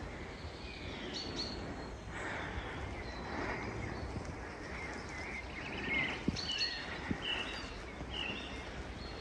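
Woodland birds singing: many short high chirps and whistles, busiest in the second half, over a steady low background rumble. A couple of sharp taps come through about halfway.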